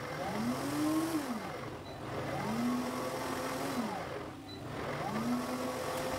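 Electric countertop blender pulsed on and off, grinding washed black-eyed peas with little water into a thick batter. Three times the motor spins up to a steady whine, holds for about a second, then winds down, roughly every two seconds.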